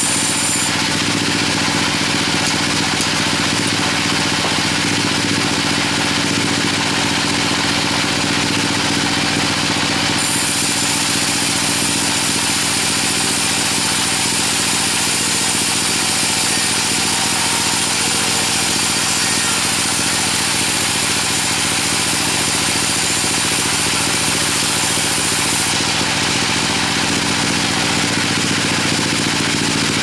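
Engine-driven sawmill saw running steadily, with a high hiss that shifts about ten seconds in and again near the end.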